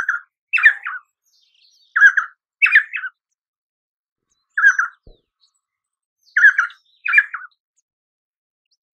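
Painted spurfowl calling: about seven short calls, several coming in quick pairs, with pauses of one to two seconds between them.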